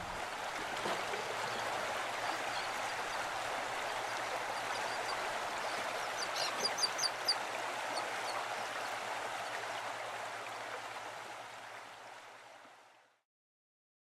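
Steady rushing of flowing water, with a few short high chirps in the middle, fading out near the end.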